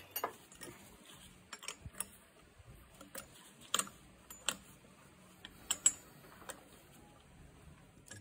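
Irregular sharp clicks and knocks of a wooden blank being handled and seated in a metal four-jaw lathe chuck, with the lathe stopped. About a dozen clicks, unevenly spaced, the loudest just before the middle and again a little after.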